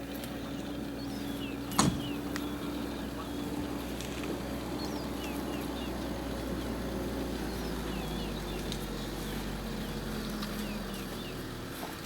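Vehicle engine running steadily at a low hum, with many small birds chirping throughout. There is a single sharp knock about two seconds in.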